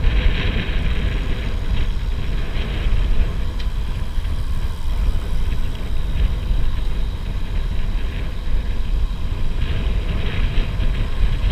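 Steady wind rumble on the microphone, with road noise from a tandem bicycle rolling at speed.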